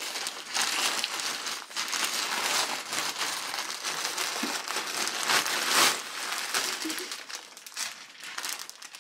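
Plastic packaging crinkling and rustling as a grey plastic mailer bag is pulled open and the plastic-wrapped garment inside is handled, with a louder burst of crackling a little past halfway.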